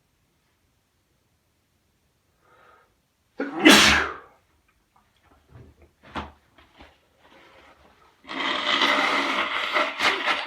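A man sneezes once, loudly, about three and a half seconds in, followed by a few faint short sounds. Near the end he blows his nose hard for about two seconds.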